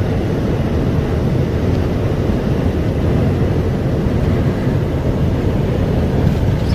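Steady low rumble inside the cab of a 2015 International ProStar semi truck driving at highway speed: engine, tyre and wind noise.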